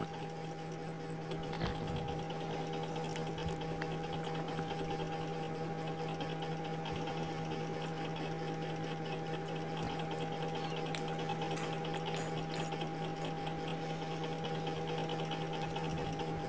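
A steady machine hum with a few held tones, getting slightly louder over the first couple of seconds, with faint scattered ticks above it.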